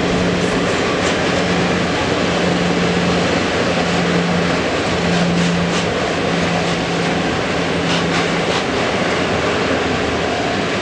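A long freight train of loaded open wagons rolling past on a curved line. There is a steady rumble and rattle of wagons, a low hum that comes and goes, and a few sharp clicks.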